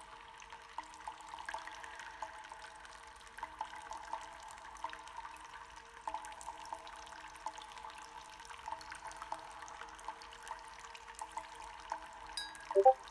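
Eggs cooking: a steady hiss with many small irregular pops and crackles. Near the end comes a short, louder pitched squeak.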